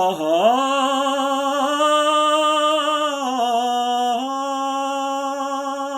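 A man singing one long wordless note with a light vibrato. It scoops up into pitch at the start, dips a little lower about three seconds in, and steps back up just after four seconds.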